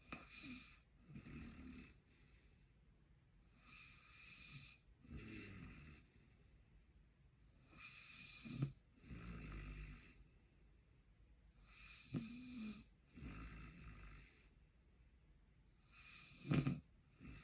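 Man snoring in his sleep in a steady rhythm, one breath about every four seconds, each breath in two parts. A short, sharp snort catches at the peak of three of the breaths.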